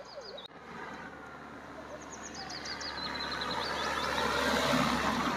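A road race approaching: a steady rush of vehicle and road noise that grows gradually louder. A string of short high chirps about two seconds in.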